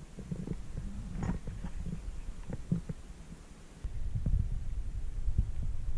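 Low, uneven rumble of wind buffeting the camera microphone, with a few faint clicks; it grows louder about four seconds in.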